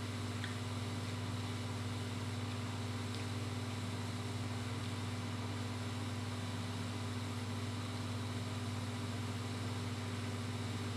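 Steady low machine hum, unchanging throughout, with a couple of faint small clicks in the first few seconds.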